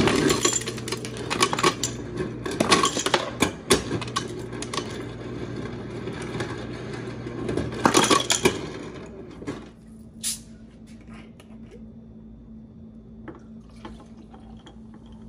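Refrigerator door ice dispenser running with a steady motor hum, dropping ice cubes that clatter into a glass mason jar; it stops about ten seconds in, followed by a single click.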